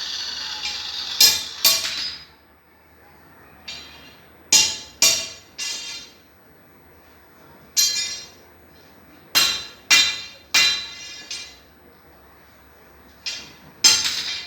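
Hammer blows on steel, about a dozen sharp, irregularly spaced strikes, each ringing briefly. A hiss runs through the first two seconds.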